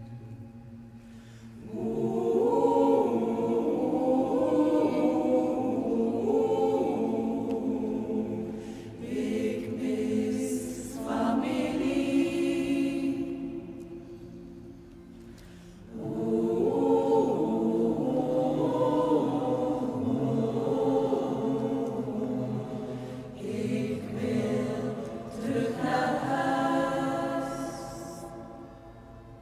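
Mixed choir of women's and men's voices singing a cappella in a church, in two long phrases that each swell and then fade, the second starting about halfway through.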